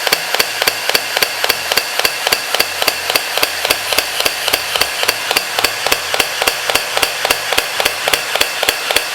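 Battery-operated toy M16 gel-ball rifle firing on full auto: its electric mechanism clacks in a steady, even rhythm of about five to six shots a second. It is running slowly and making a lot of noise.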